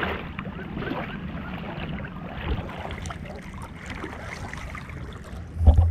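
Shallow seawater sloshing and splashing around a person wading, with small crackles of moving water. A short low thump comes near the end.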